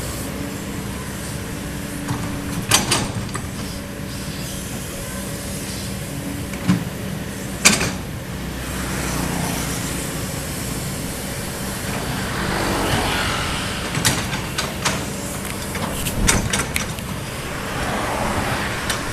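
Kobelco excavator's diesel engine running steadily under work, with swells of rushing noise as it strains, and several sharp knocks from the machine working the ground.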